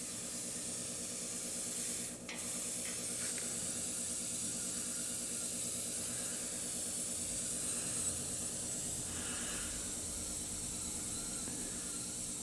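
Air hissing steadily out of the open breather (bleed valve) on a hot-water shop heater: the system was left unbled, is full of trapped air, and so the heater is running cold. A single small click about two seconds in.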